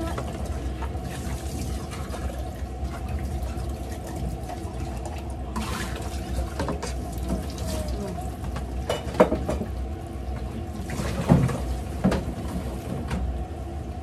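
Kitchen tap running into the sink during hand dish-washing, with a few sharp clinks of dishes being handled, the loudest about nine seconds in and more around eleven to twelve seconds.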